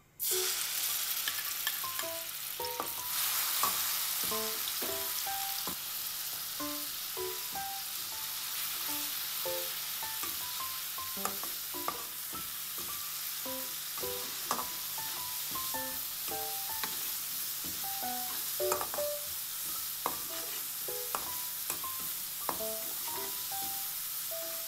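Ground spice paste and a lemongrass stalk sizzling in hot oil in a wok, stirred and scraped with a metal spatula; the sizzling starts suddenly and is steady throughout, with frequent clicks of the spatula against the pan.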